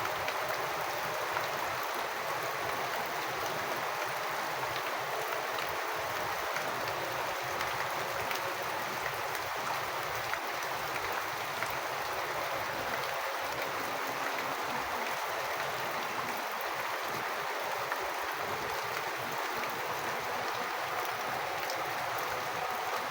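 Rainwater falling steadily: a continuous, even wash of water sound sprinkled with small drop ticks.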